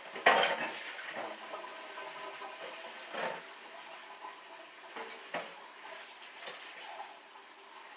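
Kitchen clatter of metal cans and utensils being handled at the counter: a loud clank just after the start, then a few lighter clinks and taps.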